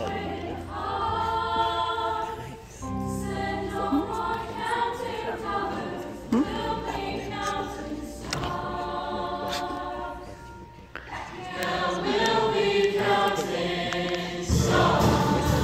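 Mixed-voice show choir singing in harmony with instrumental accompaniment, with steady bass notes underneath. The music swells to a louder, fuller passage near the end.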